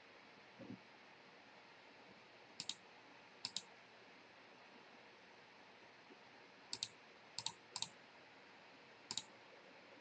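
Computer mouse clicking: about six short, sharp clicks spread out with pauses between, several heard as a quick press-and-release pair, over near silence.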